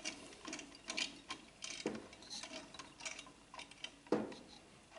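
CPU cooler mounting hardware and tools being handled: irregular light metallic clicks and taps, the sharpest about four seconds in.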